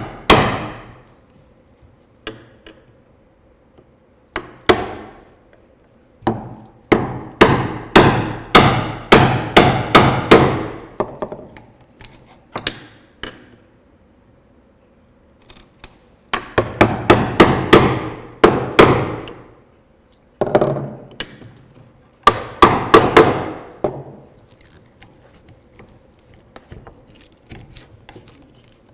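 Mallet striking a mortise chisel, chopping down into wood. The blows come in quick runs of about two a second with pauses between, and soften to light taps near the end.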